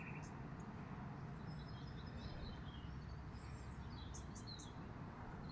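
Faint, short bird chirps over a low, steady background noise.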